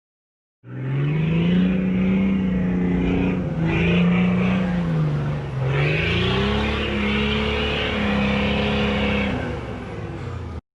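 Car engine running and revving, its pitch holding, dipping about halfway through and then climbing again; it starts and cuts off abruptly.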